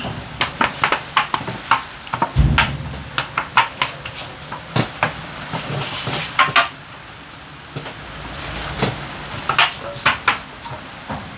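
Cooking pots and utensils clinking and knocking in a quick, irregular series, with one heavier dull thump about two and a half seconds in.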